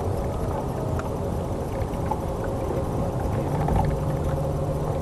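Boat motor running steadily: a low rumble with a steady hum, a deeper hum joining about three seconds in.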